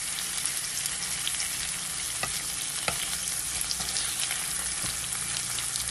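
Lamb chops searing in hot oil in a frying pan, a steady sizzle with scattered crackles and a few sharper clicks.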